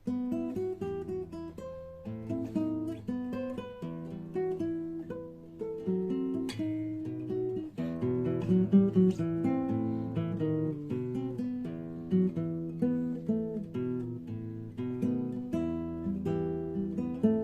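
Acoustic guitar strummed and picked in a steady rhythm, playing chords with a moving bass line, with no singing.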